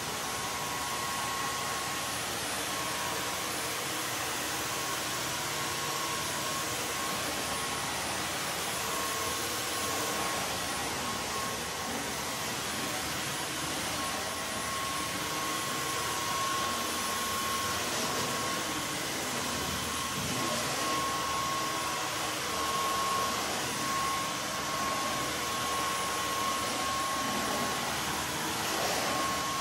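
Dyson V15 Outsize cordless stick vacuum running steadily with its laser fluffy floor head, sucking up glitter and debris from a hard laminate floor. A thin high-pitched whine rides over the motor's steady rush of air.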